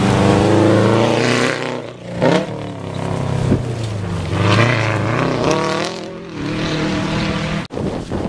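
Subaru Impreza rally car's turbocharged flat-four engine passing close at speed on a gravel stage, loudest as it goes by, then pulling away with the revs rising and dropping several times.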